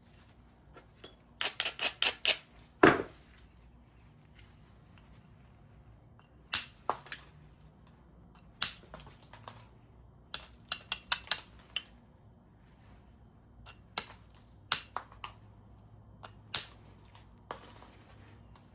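Flintknapping: a knapping tool tapping and striking the edge of a stone biface as it is thinned, giving sharp clinking clicks. A quick run of about five light clicks comes early, followed by a louder, fuller strike, then scattered single clicks and short clusters with pauses between.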